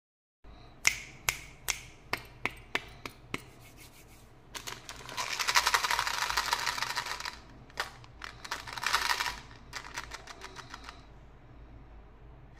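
Tic Tac mints rattling in their small plastic box as it is shaken, in two bursts: a long one about midway and a shorter one a few seconds later. Before them comes a run of sharp clicks on plastic that grow fainter, and a few light clicks follow.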